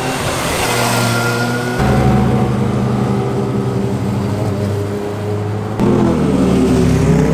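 Sport motorcycle engines running hard through corners, heard in three separate passes with abrupt changes about two seconds in and about six seconds in. Near the end the engine note falls as the rider eases off.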